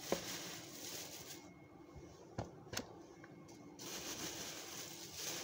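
Faint room noise with a low steady hum and three soft clicks, one just after the start and two close together about two and a half seconds in.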